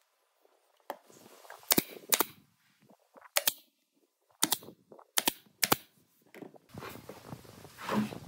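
Nail gun firing nails into solid wood planks: about six sharp shots, a second or so apart. Near the end, knocks of wooden boards being handled on the workbench.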